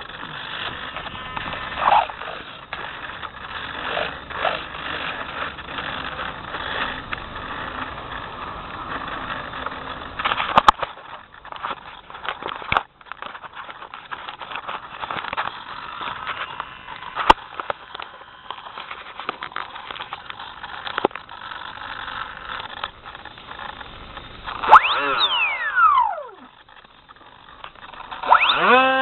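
Rough, fluctuating rushing noise with scattered sharp clicks. Near the end, an electric motor whine drops steeply in pitch as the throttle is cut. A few seconds later it climbs quickly back to a steady high whine.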